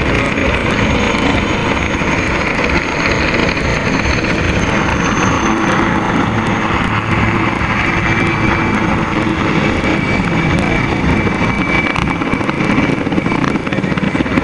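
Military helicopters flying low past: steady rotor and turbine noise, first from a formation of light Bell 206-type helicopters, then from a single Aérospatiale SA 330 Puma. A thin high whine sits over it in the second half.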